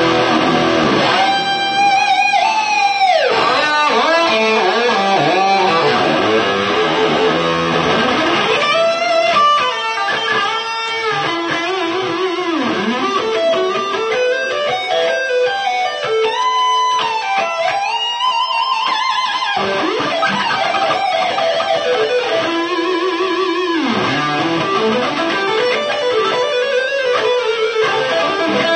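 Electric guitar played through a pedalboard of effects pedals, sustained lead notes with frequent pitch bends and slides, sounding the pedalboard after its repair.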